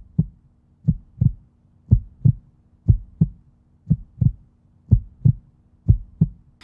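Heartbeat sound effect: a low double thump, lub-dub, about once a second, over a faint steady hum.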